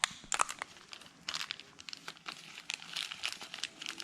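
Plastic packaging crinkling and rustling in short, irregular crackles, as a new idler-gear spring is unwrapped and handled.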